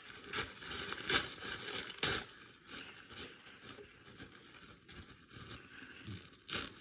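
Tissue paper being torn and crinkled by hand: an irregular rustle with a few sharper rips, the loudest about one and two seconds in.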